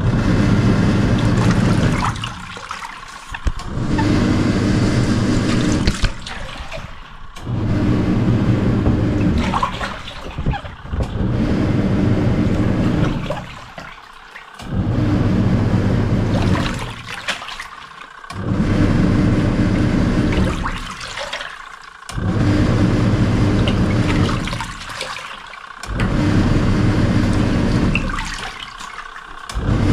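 Wash motor and pulsator of a 1991 Samsung SW-655P twin-tub washing machine churning water and washing, running in spells of two to three seconds with a short stop between each, about every four seconds, as the wash action reverses direction.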